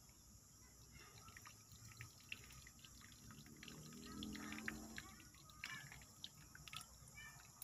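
Very quiet, scattered small crackles and rustles of dry bonsai roots and potting soil being handled by hand. A brief faint low drawn-out sound comes about halfway through.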